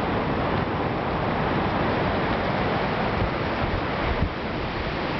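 Surf breaking on a sandy beach mixed with wind buffeting the microphone: an even rush with a low rumble, and a short thump about four seconds in.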